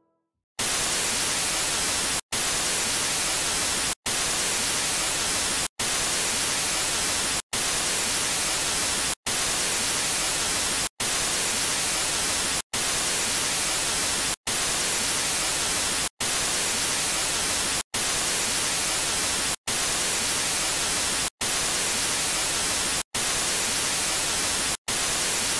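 Television static: a steady white-noise hiss that starts about half a second in. It is cut by a brief silent gap roughly every 1.7 seconds, like a short loop repeating.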